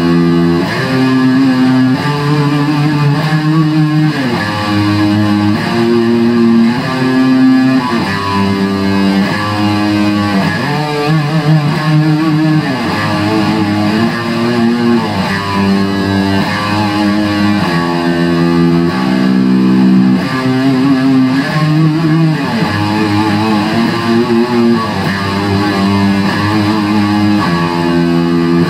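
Epiphone SG Special electric guitar played through a Line 6 Spider III amp: improvised heavy metal lead, with held notes and chords changing every second or two and several string bends and wavering vibrato.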